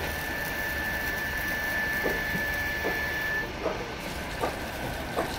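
Crompton Mini Master electric water pump running with a steady mechanical whir and low hum, pumping water up from the borewell. A high steady whine cuts off about three and a half seconds in, and a few light knocks sound over the run.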